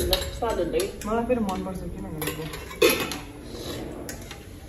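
Metal spoons and a serving turner clinking and scraping against steel plates and a pan during a meal. Several scattered clinks, with one louder clank about three seconds in.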